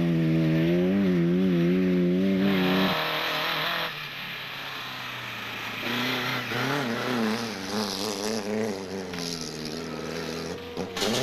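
Rally car engines running hard at high revs, the pitch wavering up and down with the throttle. About three seconds in the loud engine cuts off abruptly, followed by a second of hissing noise, then a quieter engine that wavers the same way.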